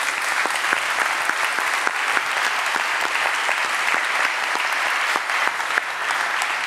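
Audience applauding: many hands clapping together at a steady level.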